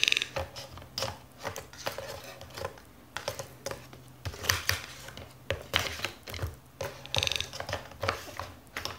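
A toucan's bill tapping, knocking and scraping against a cardboard box and its lid, in irregular clicks, with two brief rapid rattles, one right at the start and another about seven seconds in.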